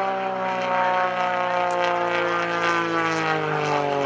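Pitts S-1S aerobatic biplane's Lycoming piston engine and propeller running hard in flight, its note sliding slowly down in pitch.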